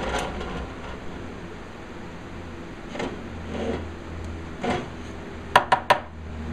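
Benchtop drill press with a spade bit finishing its cut through a wooden dowel, the cutting sound dying away right at the start and leaving a low steady hum. Then a few soft wood-on-wood knocks as the dowel is handled in the wooden jig, and three sharp knocks in quick succession near the end.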